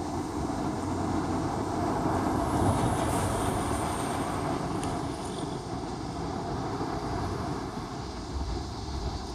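Rumbling noise of a passing vehicle, swelling about two to three seconds in with a faint high whine that falls in pitch, then slowly fading.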